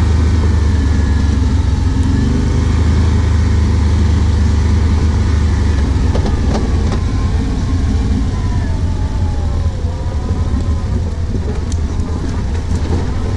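Can-Am Outlander 570 ATV's V-twin engine running under way at a steady low speed, heard from the rider's seat. In the second half a whine rises and falls in pitch as the throttle changes.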